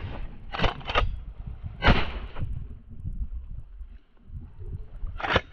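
A black Labrador splashing through a shallow creek: a series of short, sharp splashes, two close together about half a second in, another at about two seconds, and a second pair near the end, over low wind rumble.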